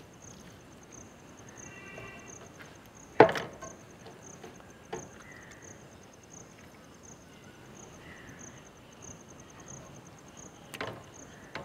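Knocks and wet thuds as pieces of marinated chicken are pushed down onto a vertical steel shawarma rod, the loudest about three seconds in and others near five and eleven seconds. An insect chirps steadily in the background with an even, rapid pulse.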